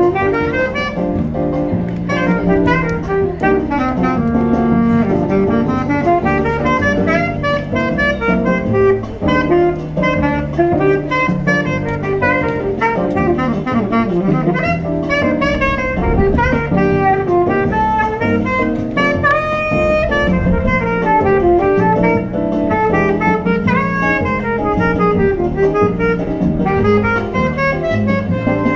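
Saxophone playing a jazz melody live, over a backing track of bass and drums from a small speaker.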